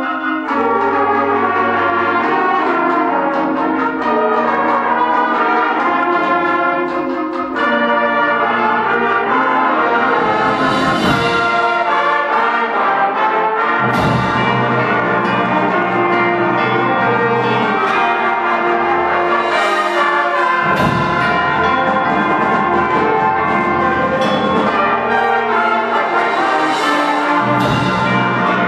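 High school concert band playing full sustained chords led by brass, with bell-like percussion ringing. Cymbals swell and crash about four times.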